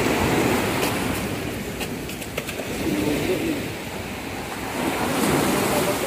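Small sea waves washing onto the shore, with wind on the microphone; the wash swells near the start and again near the end.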